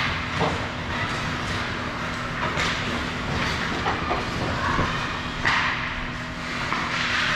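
Ice hockey skates scraping and carving on the rink ice, with a few sharper scrapes, over the steady hum of the rink.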